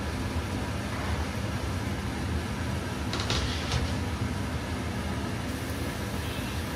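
Minced garlic sizzling in hot oil in a non-stick wok on an induction hob, over a steady low rumble; the sizzle flares up briefly about three seconds in.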